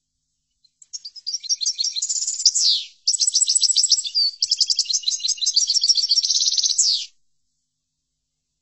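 European goldfinch singing an 'Assali'-style song, a fast, high twittering of rapid repeated notes and trills with a few quick downward sweeps. It comes in two phrases with a brief break between them, the second about twice as long as the first.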